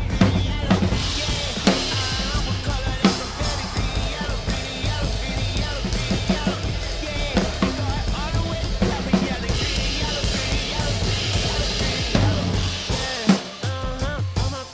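Drum kit played in time with recorded backing music: kick drum, snare and cymbal hits in a steady beat over bass and other instruments.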